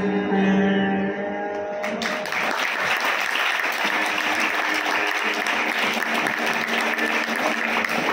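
The last notes of a surbahar ring out, and about two seconds in audience applause breaks out and carries on.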